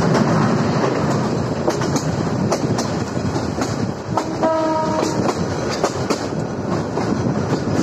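Passenger train running on curving track: a steady rumble with the clack of wheels over rail joints, and a horn blast lasting about a second halfway through.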